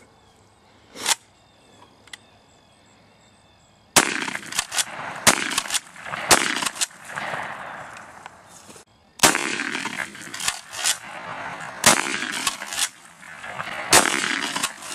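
Remington 870 12-gauge pump shotgun: a single click about a second in, then a loud sudden shot about four seconds in. A dense run of repeated bangs and cracks follows, with a brief gap just before the ninth second.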